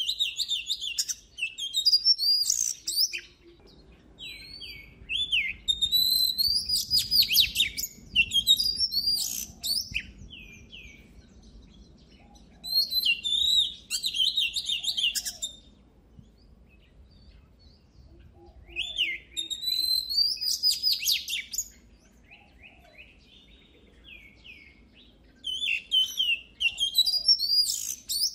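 Oriental magpie-robin singing: bursts of rapid, varied whistled notes lasting a few seconds each, separated by short quieter pauses.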